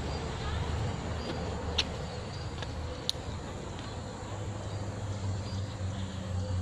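Low, steady engine hum that swells a little from about five seconds in, with two short sharp clicks in the middle.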